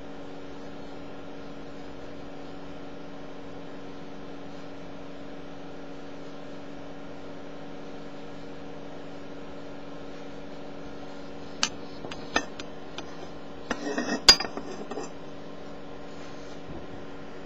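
Steady hum of a CO2 laser marking system, holding several even tones. Near the end comes a run of sharp clicks and glassy clinks, the loudest a single sharp click, as the quartz part is handled.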